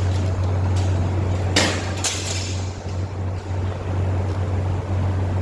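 A machine running with a steady low hum, and a short burst of hiss about a second and a half in.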